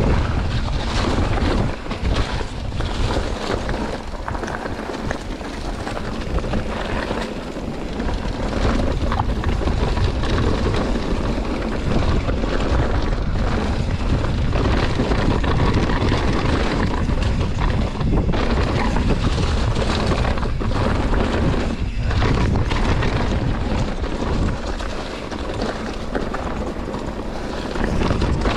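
Wind buffeting the microphone over the clatter of a mountain bike descending a rough trail fast: tyres on dirt and rock, with frequent short knocks.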